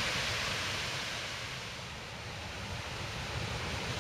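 Rushing water pouring over a dam spillway, a steady hiss that fades about halfway through, with a low rumble of wind on the microphone underneath.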